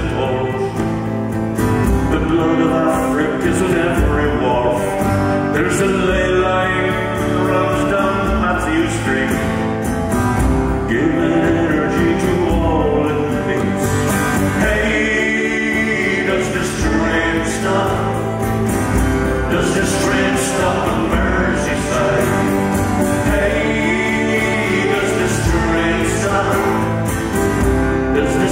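A folk song performed live: a man singing to his own acoustic guitar, steady strummed accompaniment under a slow sung melody.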